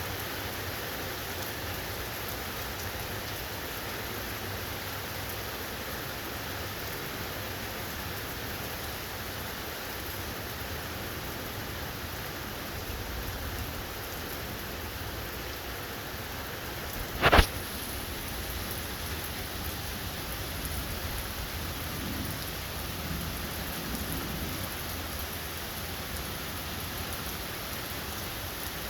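Steady heavy rain falling, an even hiss. About 17 seconds in there is a single brief, sharp crack, much louder than the rain.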